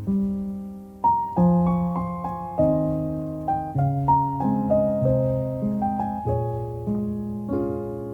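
Background music: a slow, gentle piano piece, struck notes and chords that ring and fade, a few a second.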